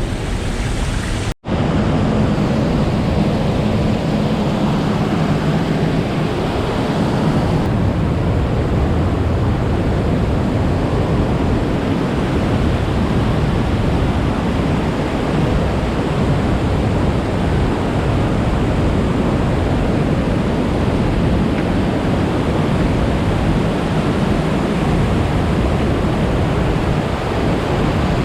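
Waterfall on the Willow River rushing steadily, a loud, even wash of falling water, broken by a sudden split-second cut to silence about a second and a half in.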